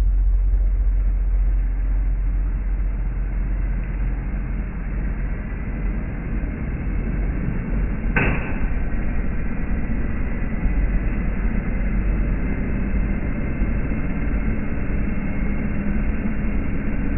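Early-1970s Hoover Custom Convertible U4007 upright vacuum running steadily, its metal four-row brushroll agitating medium-pile carpet. A single sharp click comes about eight seconds in.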